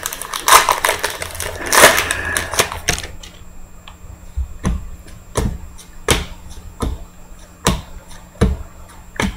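Foil wrapper of a trading card pack crinkling and tearing open for about the first three seconds, then the cards being flicked through one by one, with a sharp click roughly every three-quarters of a second.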